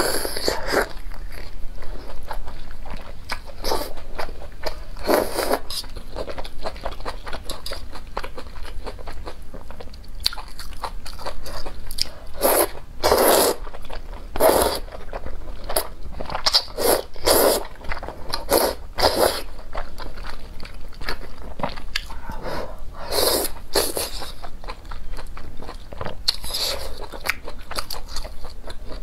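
Close-up eating sounds: biting and chewing a crisp fried egg and slurping noodles, in irregular wet bursts with short pauses between them.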